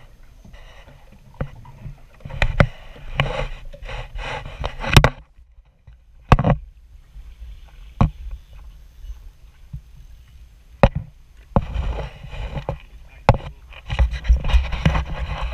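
Water slapping and sloshing against a small boat's hull in irregular surges, with wind on the microphone and several sharp knocks against the boat.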